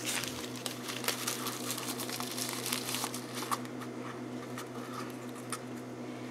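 Crinkling and small clicks of a paper tea bag being pushed down through the neck of a glass bottle of water, with fingers tapping the glass rim.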